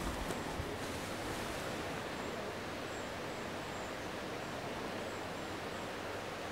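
Steady hiss of water circulating in a home aquarium, with a few faint knocks in the first second.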